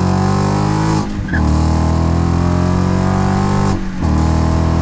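2015–2017 Mustang GT's 5.0 Coyote V8 through a Magnaflow Street cat-back exhaust with straight-through mufflers and an X-pipe, heard at the tailpipe under acceleration: a deep exhaust note whose pitch climbs steadily. It drops back twice, about a second in and again just before four seconds, as the car shifts up.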